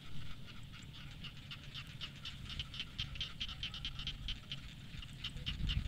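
A dense chorus of frogs calling from a flooded rice paddy: many short, rapid croaks from many animals overlapping. Under it runs a low rumble that swells near the end.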